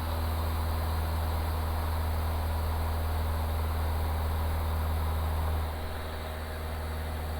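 Steady drone of a Van's RV-7's piston engine and propeller, heard from the cockpit, climbing under power. The sound drops slightly about three-quarters of the way through.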